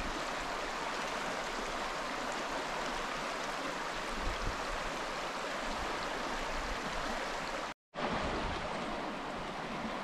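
Shallow rocky creek running over stones in riffles: a steady rush of water. It cuts out for an instant just before eight seconds in.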